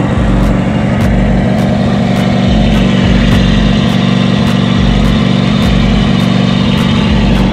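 Engine of a Toro Proline 36-inch walk-behind mower running steadily at a constant speed, with a light tick repeating a little under twice a second.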